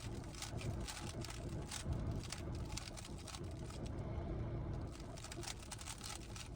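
GAN 15 speedcube being turned in quick runs of moves, a rapid patter of plastic clicks, over a low steady rumble.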